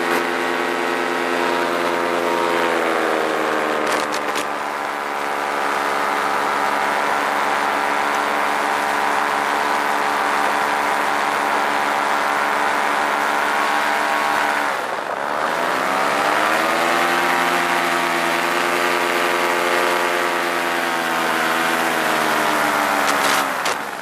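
Paramotor engine and propeller running steadily in flight. About three seconds in the engine note dips slightly, and around fifteen seconds in it drops sharply and then climbs back up over about two seconds. It falls away right at the end.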